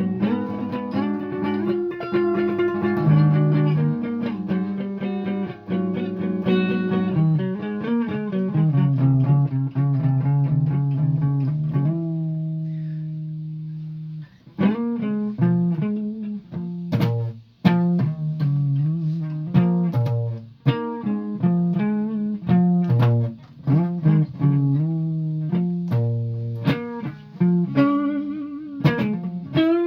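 Guitar played solo: plucked notes and chords ringing, a low note held and left to fade around the middle, then quicker picked notes.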